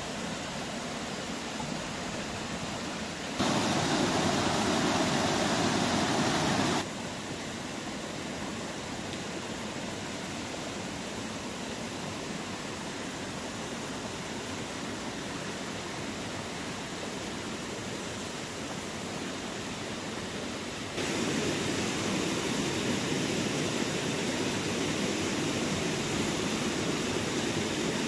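Steady rush of a shallow rocky stream flowing, louder from about 3 to 7 seconds in and again from about 21 seconds in.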